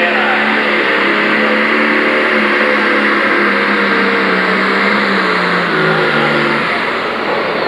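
Pro Stock pulling tractor's turbocharged diesel engine running flat out under load as it pulls the sled, with heavy smoke from the stack. The engine note drops a little about six seconds in as the sled's load builds.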